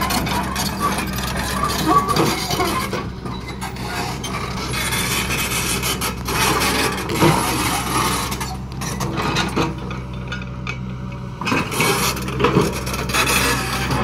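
Hydraulic rock breaker on an L&T-Komatsu excavator hammering rock in rapid, rasping blows over the excavator's steady diesel engine. The hammering stops twice, briefly about three seconds in and for about three seconds past the middle, leaving the engine running alone.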